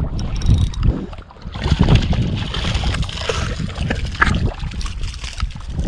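Water splashing and sloshing against shoreline rocks, with wind rumbling on the microphone.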